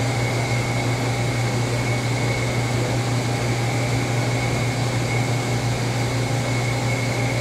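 Doosan Lynx 220LM CNC turning center running steadily through its program: a constant low machine hum with a thin, steady high whine over it.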